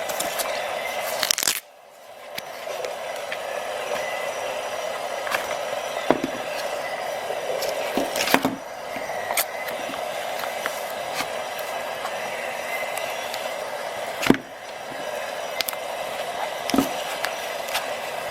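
Sharp metallic clicks and snaps of a Swiss Army knife's tools being handled, opened and closed, a few times, over a steady background hiss.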